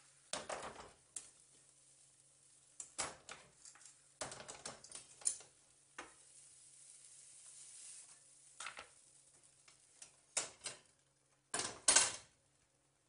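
Bonera cast-iron stovetop toast press being handled: irregular metal clanks, knocks and scrapes as it is opened and the grilled sandwich is lifted out onto a wooden board. There is a faint sizzle in the middle and the loudest clatter comes near the end.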